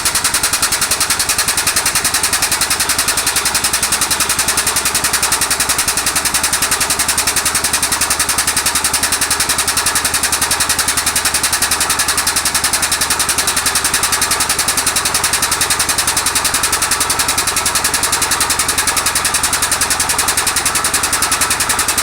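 Air-over-hydraulic jack of a shop press pumping to drive the ram down onto a suspension bush, a loud hissing noise with a rapid, even pulsing that keeps going without a break.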